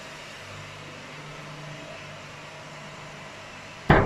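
Steady mechanical hum of a running machine, then near the end a single sharp metallic bang with a short ringing tail: a sheet-metal door on the machine's enclosure being shut.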